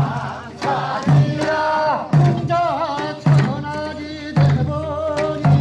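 Korean traditional farmers' music (nongak): a deep drum struck in a steady beat about once a second, under a wavering melody line.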